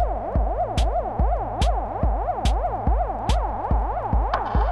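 Hard trance music: a steady four-on-the-floor kick drum at about two and a half beats a second, a cymbal hit on every other beat, and a synth line sliding up and down in pitch. Just before the end a new synth part comes in.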